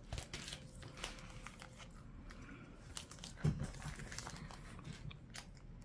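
Quiet crinkling and rustling of a clear plastic sleeve of vinyl decals being handled, with scattered soft clicks. There is one brief, slightly louder low sound a little past halfway.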